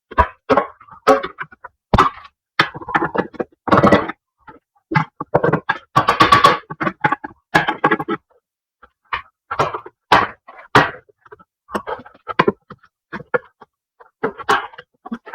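A long pry bar working against the lip of a transfer case rear output seal to drive it out: irregular sharp metal knocks and clanks with a few longer scraping stretches. The seal is stubborn and slow to come out.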